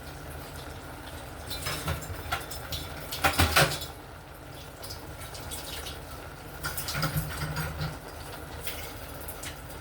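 A cooking pot and utensils being handled: a few scattered clinks and knocks, the loudest about three and a half seconds in, over a low steady background.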